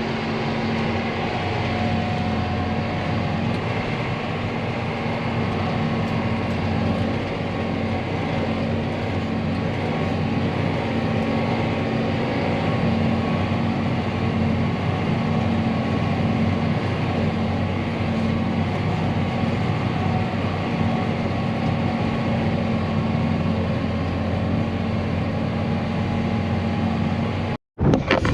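Tractor engine running steadily under load while pulling a corn planter, an even drone that holds one pitch, cutting off abruptly near the end.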